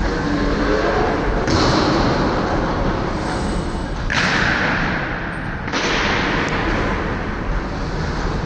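Skating treadmill running steadily under a skater, with skate blades scraping across the moving synthetic-ice belt in three stretches of louder, brighter scraping.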